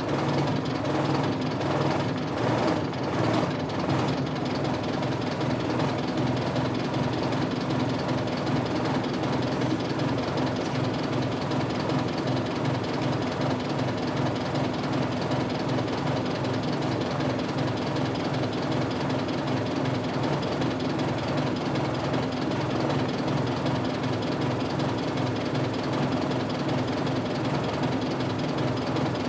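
Isuzu 8PE1 V8 diesel engine of a 1998 Isuzu Cubic bus idling with an uneven, throbbing beat, more ragged for the first few seconds and then settling into a steadier pulse. This is the markedly unstable idle that the uploader points out around this part of the recording.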